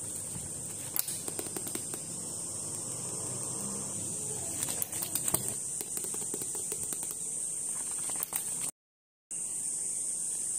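New paperback books handled by hand: pages riffling and covers rustling and tapping, heard as a few sharp taps and rustles over a steady hiss. The sound cuts out for about half a second near the end.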